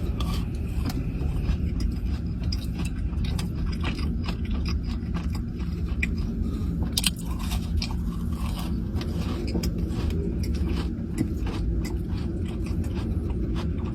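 A person chewing and biting a soft strawberry crinkle cookie close to the microphone: small, irregular wet clicks and crackles of mouth sounds. A steady low hum runs underneath.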